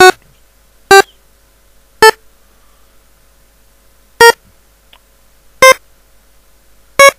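Short synthesizer preview notes from the LMMS piano roll, one sounding as each note is drawn in: six in all, one to two seconds apart, each a step higher as they climb an E diminished scale.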